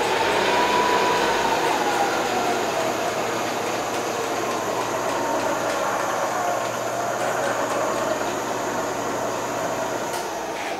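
Spindle head of a ProtoTRAK TRM bed mill running, a steady machine hum with a whine that rises and falls in pitch as the spindle speed is dialled up and down.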